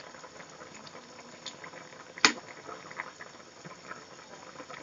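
Chicken giblet and chayote soup boiling hard in a pan over a high flame: a dense, steady bubbling and popping of the broth. One sharp click comes a little past two seconds in.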